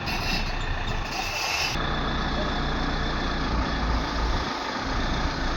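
Heavy diesel engine running steadily at work, with a loud hiss for about the first two seconds that then cuts off.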